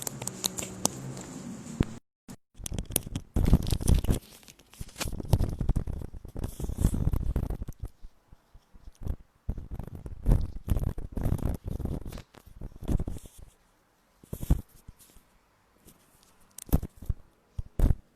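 Irregular handling noises: rustling and scraping with sharp clicks and knocks, coming in uneven bursts.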